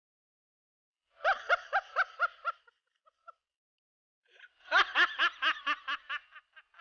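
A sly snickering laugh, 'he-he-he', in two runs of quick, even pulses: a short run about a second in and a longer one near the end.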